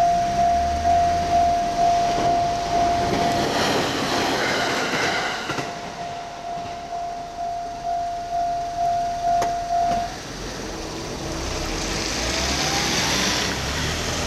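Japanese level-crossing warning bell ringing at about two strikes a second while a train runs past. The bell stops about ten seconds in, which means the crossing is clearing after the train; rail and vehicle noise carries on to the end.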